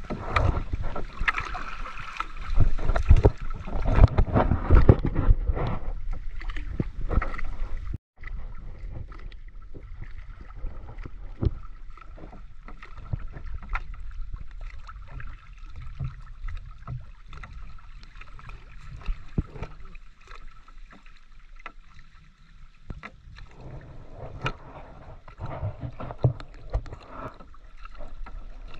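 Water splashing and lapping against the hull of a small outrigger canoe. Scattered knocks and rustles come from a fishing net being paid out over the side. It is louder for the first several seconds, breaks off abruptly about eight seconds in, and goes on more quietly.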